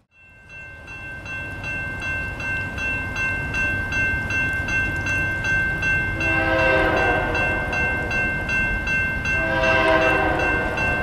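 Diesel locomotive horn sounding two blasts, the first about six seconds in and the second near the end, over the steady rumble of an approaching train. A grade-crossing bell rings rapidly and steadily throughout.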